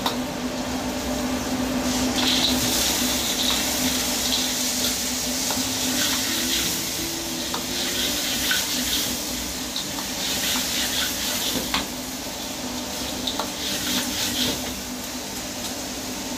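Clams and dried chilies stir-frying in an iron wok: hot oil sizzling in waves, with the steel ladle scraping and clinking against the wok. A steady low hum runs underneath.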